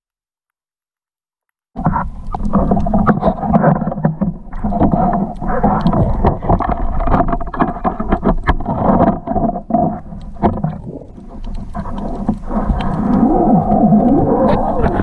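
A boat's motor running with a steady hum, water slapping and knocking against the hull over it; it cuts in suddenly after about two seconds of dead silence.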